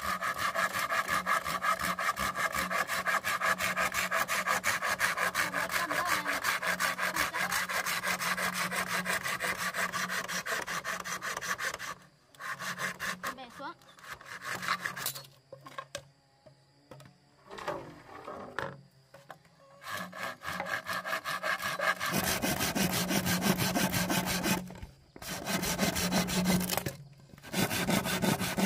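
A saw cutting through bamboo in quick, steady strokes. It stops about twelve seconds in, starts again after a pause of about ten seconds, and carries on in short runs with brief breaks.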